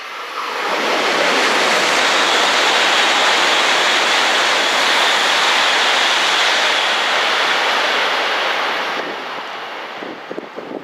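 Coupled H5 series and E6 series Shinkansen trainsets passing through at high speed without stopping: a loud, steady rush of air and wheel noise that swells about a second in, holds for several seconds and dies away near the end.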